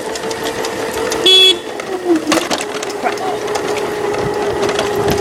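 An electric scooter's horn gives one short electronic beep about a second and a half in, over the steady whine of a scooter's electric motor, which dips in pitch briefly about two seconds in. Light clicks and rattles throughout.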